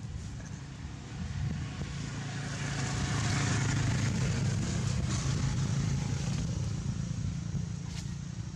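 A passing engine: a low, steady hum that swells over a few seconds, is loudest around the middle, then slowly fades.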